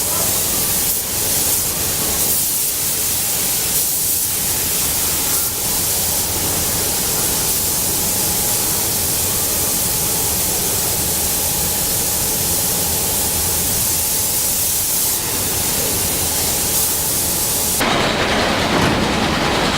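Loud, steady hissing noise from the car-factory floor, changing to a duller rush about two seconds before the end.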